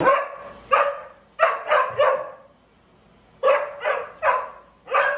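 Short-haired red dog barking: a quick run of five sharp barks, a pause of over a second, then four more, the dog crouching in a play bow by the last ones.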